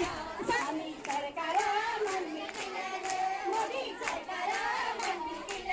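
A group of women singing together, with hand-clapping in time with the song.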